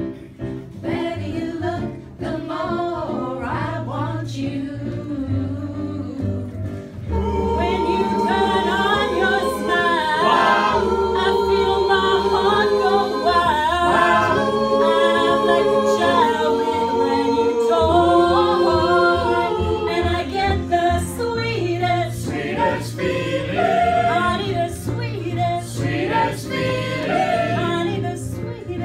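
Mixed choir of men's and women's voices singing a song together, becoming louder and fuller about seven seconds in.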